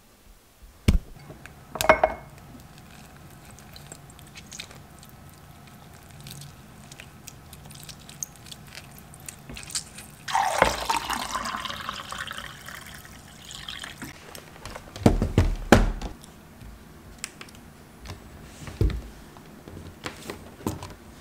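Lemon pressed in a hand-held citrus squeezer, with juice and liquid running into a glass tumbler in a stretch that starts about ten seconds in. Scattered knocks and clatter of things being handled, loudest in a cluster about fifteen seconds in.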